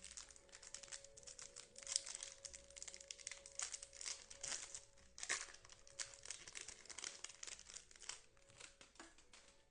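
A trading-card pack's wrapper being torn open and crinkled by hand, a dense run of irregular crackles, with the sharpest crackles about two and five seconds in.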